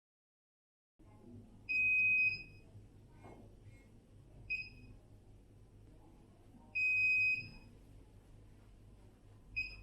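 Airdog air purifier beeping over and over, a long high beep and then a short one, about every two and a half seconds, over a low hum. It is a fault warning that goes with flickering lights, which the maker traces to a faulty keypad or a connecting belt come off the transfer plate.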